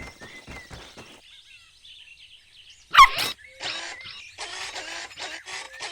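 Cartoon sound effects: light ticks and small bird chirps at the start, then about three seconds in a sharp, short puppy yelp, followed by a string of short rough bursts.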